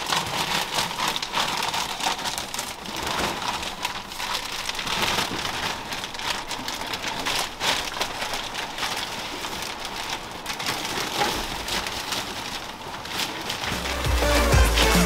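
Old carpet and crumbling jute padding being torn up off a truck's floor pan: a dense crackling and rustling with many small clicks of falling debris. Background music with a heavy bass line starts near the end.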